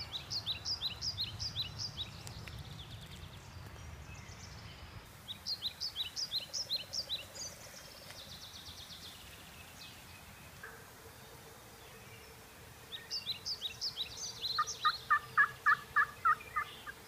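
Turkey calling: three rapid runs of sharp, high-pitched notes, then near the end a louder run of about nine evenly spaced lower notes, roughly four a second.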